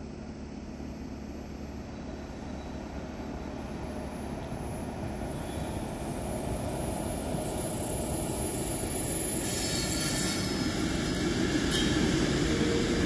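A train approaching on the railway line, its running noise growing steadily louder for about nine seconds and then holding near that level.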